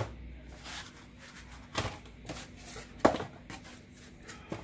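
Handling noise from laptop packaging, a moulded pulp tray and a fabric sleeve being moved and lifted: faint rustling with a few short knocks, the sharpest about three seconds in.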